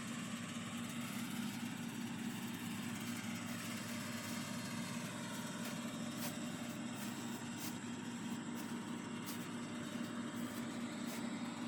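A steady low hum like an idling engine, with a few faint ticks.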